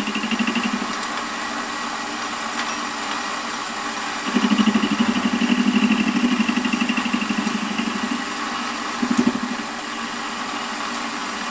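Warco WM180 bench lathe running, its spindle turning a square aluminium block in the four-jaw chuck. The sound grows louder and pulses rapidly from about four to eight seconds in, and again briefly near nine seconds.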